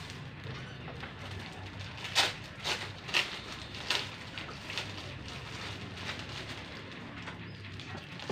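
Cardboard box and plastic packaging being handled and rummaged through, with a handful of sharp crinkling crackles about two to four seconds in and lighter rustles after, over a steady low hum.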